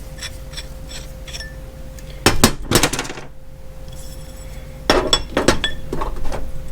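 Small air-blow-gun nozzle accessories, aluminium extensions and plastic parts, clinking and rattling as they are handled. There are scattered light clicks, with two flurries of sharper clinks about two seconds in and again about five seconds in.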